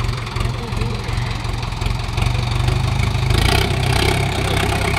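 Sonalika DI 750 III tractor's diesel engine running under load as it pulls against a braked tractor, with a steady low throb. About three seconds in it revs higher and gets louder.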